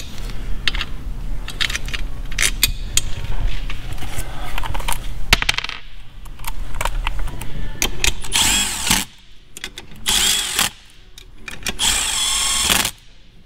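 Metallic clicking and rattling as small alternator parts and bolts are handled, then a Milwaukee cordless driver runs three times in the second half, running the through-bolts into the alternator housing.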